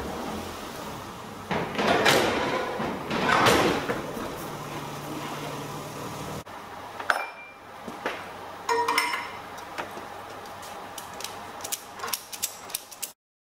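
A car's engine running as it rolls onto the dyno, with two loud rushes of noise about two and three and a half seconds in. After a sudden cut, the metal hooks and ratchet of a tie-down strap clink and click as the strap is tightened to hold the car, with quick ratchet clicks near the end.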